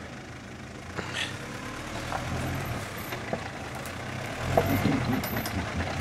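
Mitsubishi Pajero's engine pulling under load off-road with its differential locks engaged and all wheels driven. It gets louder about halfway through, with scattered knocks and clicks.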